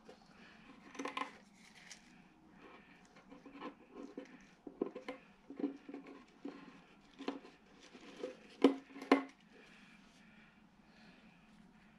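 Handling sounds of fingers working a small rubber balloon on a fitting inside a box: scattered light clicks, taps and rubbing, with two sharper knocks close together about nine seconds in.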